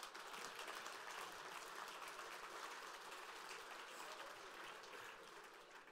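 Audience applauding, faint and even, fading out near the end.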